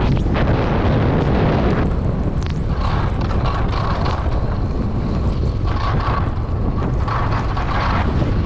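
Loud, steady wind buffeting a camera microphone during a fast ski descent, with the hiss of skis running through powder snow.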